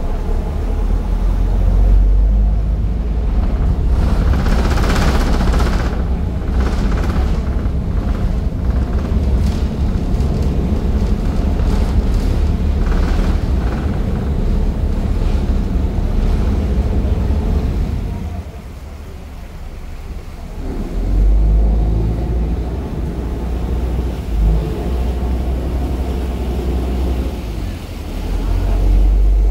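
Passenger ferry's engines rumbling low and heavy under the deck. The rumble falls away for a couple of seconds about two-thirds through, then runs up again and swells near the end as the ferry manoeuvres to berth. A brief rushing noise comes about five seconds in.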